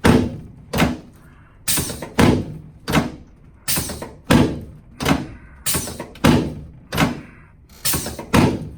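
A regular series of about fourteen sharp thuds, roughly one every half second to second, from chiropractic adjusting thrusts to the left sacroiliac joint of a patient lying face down on a treatment table.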